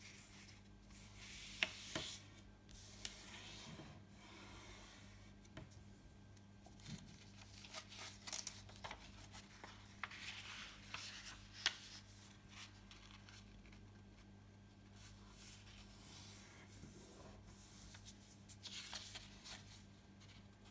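A sheet of A4 paper being folded and creased by hand: intermittent rustling and rubbing, with a few sharp crinkles, over a faint steady electrical hum.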